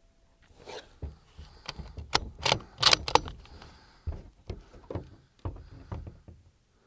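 Bolt-action .223 rifle being worked by hand: a run of metallic clicks and clacks as the bolt is cycled, loudest about two to three seconds in.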